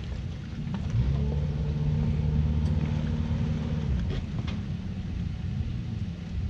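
Outboard motor running in gear, powering the boat onto its trailer. The throttle comes up about a second in, holds steady, and eases back near four seconds.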